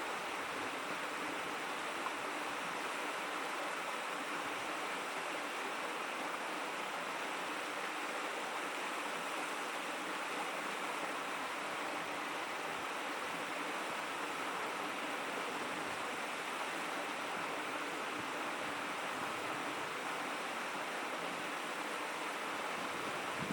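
A shallow river babbling and rushing over stones: a steady, even flow of water noise.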